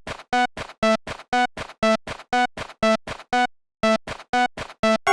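Japanese level-crossing warning bell ringing, a pitched clang about twice a second with each strike trailed by fainter repeats. It breaks off briefly about three and a half seconds in, then resumes.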